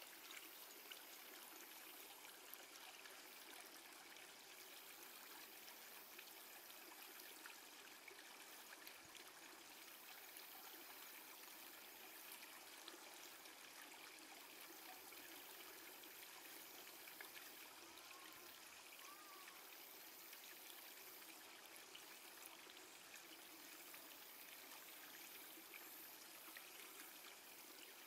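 Near silence: faint, steady background hiss with no distinct event.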